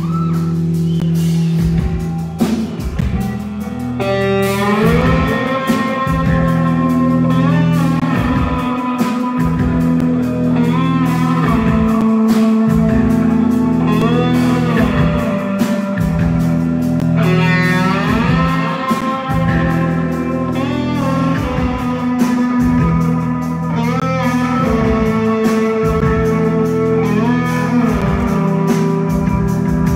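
Live blues-rock band with an electric guitar lead: long held notes that slide up in pitch, over bass and drums.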